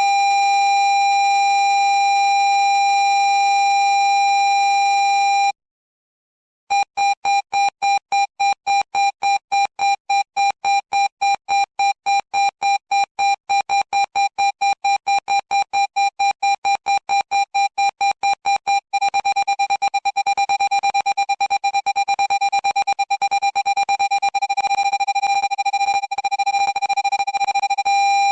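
Low-pitched parking-sensor beep: a steady unbroken tone for about five seconds, a short gap, then a run of beeps about four a second that turns into a much faster, almost continuous stutter about two-thirds of the way through. The quicker the beeps, the nearer the obstacle; the unbroken tone means the nearest distance.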